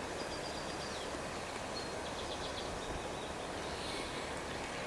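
Outdoor ambience: a steady hiss of wind and background noise, with faint high bird chirps and a short rapid trill about two seconds in.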